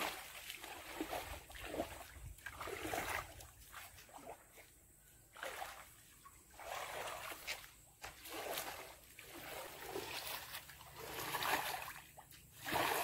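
Shallow muddy water splashing and sloshing in irregular surges as a person wades through it, stirring the water to chase fish into a net.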